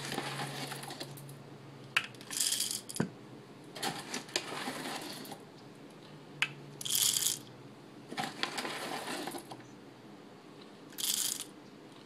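Whole coffee beans rattling as they are scooped and poured into the small plastic hopper of a Hario Mini Mill Slim hand grinder, in several short pours. A few sharp single clicks fall between the pours.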